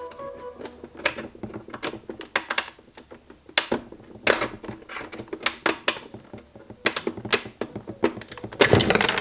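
Irregular clicks and knocks of hard plastic car trim and small parts being handled, with a louder scraping rustle near the end.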